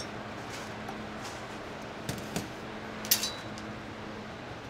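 A few light clinks of metal kitchenware, a small pot and spoon against a blender jar, as starchy cooking water is added; the loudest clink comes about three seconds in and rings briefly. A steady kitchen background hum runs underneath.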